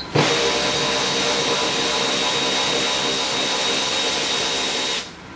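Cordless drill/driver running steadily for about five seconds with a high motor whine, starting suddenly and cutting off near the end, as it backs out a screw holding a car door panel.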